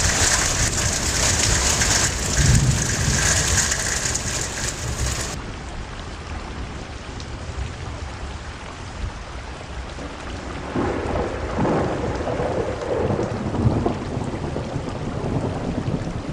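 Heavy rain pouring down with a loud, steady hiss. About five seconds in it gives way to a duller recording of a rainstorm, with thunder rumbling in low swells around the eleven- to fourteen-second mark.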